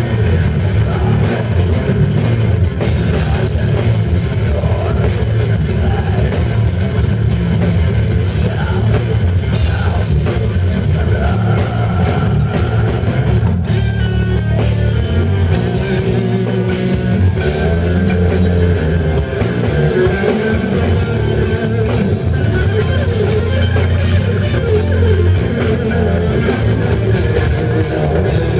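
A metal band playing live, loud and dense: distorted electric guitars, bass guitar and a pounding drum kit, heard from the crowd.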